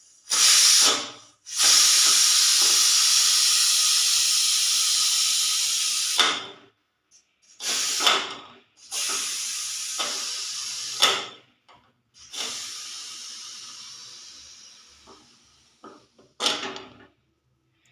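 Pressure cooker whistle venting steam in six hissing bursts: three short ones, and three long hisses that start sharply and slowly fade, the longest lasting about five seconds.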